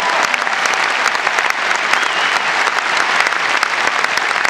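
Large arena crowd applauding: dense, steady clapping.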